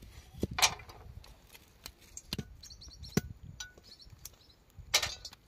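Kitchen utensils being handled: a few scattered clinks and knocks, some with a brief metallic ring, the loudest near the start and again near the end.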